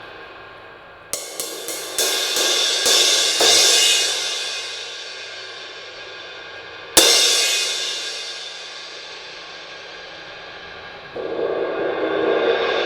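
Sabian Vault 19-inch V-Crash cymbal played as a sound test after its crack was smoothed out. A quick string of lighter hits comes about a second in and rings out. One hard crash at about seven seconds rings and slowly decays, and a steady wash of cymbal sound swells up near the end.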